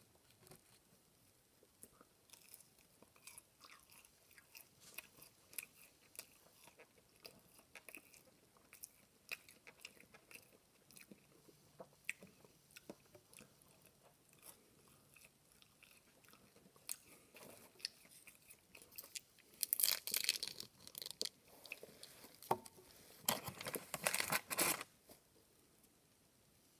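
Chewing and biting into crispy breaded spicy chicken nuggets: a steady run of faint crunches and small mouth clicks. Two louder, longer stretches of noise come in the last third.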